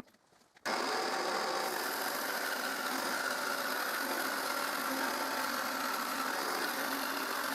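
Jigsaw with a metal-cutting blade, mounted under a table, cutting 1 mm thick metal sheet: a steady motor whine over the blade's cutting noise, starting abruptly just under a second in.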